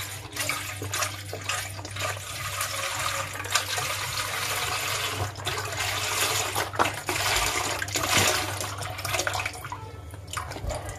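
Milk pouring in a steady stream from a one-litre carton into an aluminium saucepan, the liquid noise easing off near the end.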